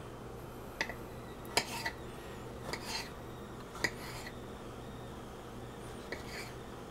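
Kitchen knife dicing a tomato on a cutting board: a handful of short, irregular taps and slicing clicks as the blade meets the board. The knife is dull.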